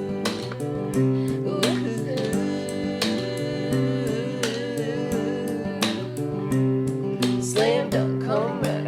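Acoustic guitar strumming chords in an instrumental passage of an indie song, with wavering, voice-like notes near the end.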